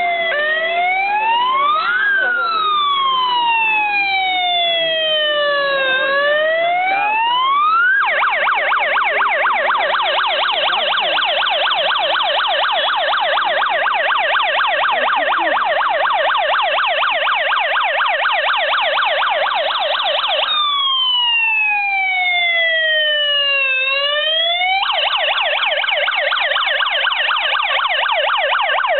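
Fire engine siren sounding as the truck approaches, switching between modes. It starts with a slow wail rising and falling over a few seconds, changes to a fast yelp about eight seconds in, goes back briefly to the wail, then returns to the yelp near the end.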